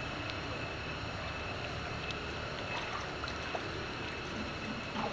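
Macaques wading and splashing in a shallow puddle: light, scattered splashes and drips over a steady low background rumble with a thin, constant high tone.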